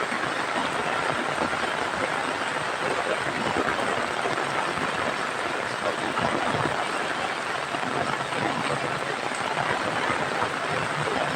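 Heavy rain falling steadily, a dense, even hiss of downpour.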